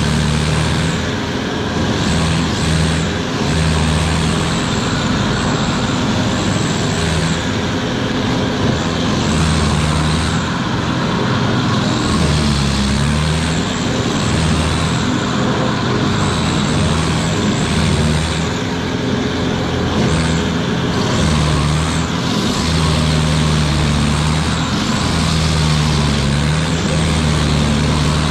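Carlton SP8018 stump grinder running hard, its cutter wheel grinding into an oak stump. The engine pitch dips briefly a few times as the wheel bites into the wood, over a steady noisy chewing.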